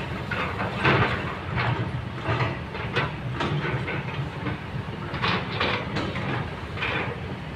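Kobelco excavator's diesel engine running steadily, with irregular short hissing surges from the hydraulics, about one or two a second, as the arm and boom move.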